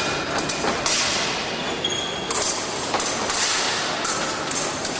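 Épée fencing in progress: repeated sharp clicks and knocks of blades meeting and feet striking the piste, over the steady din of a large fencing hall.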